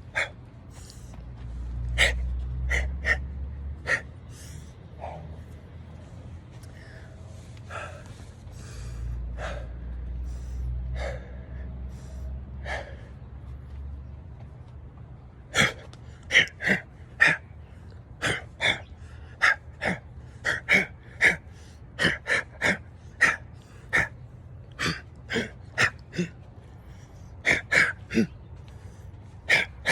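A person's breathing recorded close up: short, sharp gasping breaths, few at first and then rapid and often in pairs, about two a second, through the second half. A low rumble runs under the breaths in the first half.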